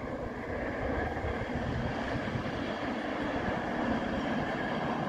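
CP Rail Brandt road-rail truck running on the track: a steady rumble of its engine and wheels on the rails.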